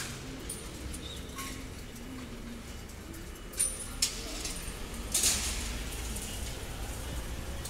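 Outdoor street ambience: a steady low rumble with a few brief scuffs and rustles, the loudest about five seconds in.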